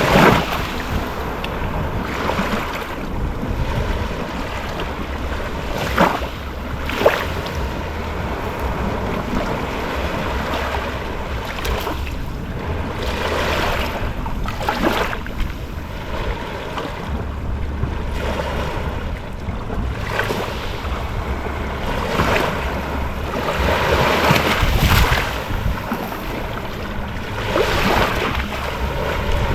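Gentle ocean waves washing in and out on the shore, swelling and fading every few seconds, with wind buffeting the microphone.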